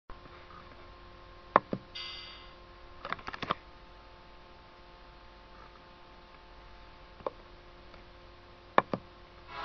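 Steady electrical hum with a handful of sharp clicks from a computer mouse, some in quick press-and-release pairs. There is a brief high tone about two seconds in.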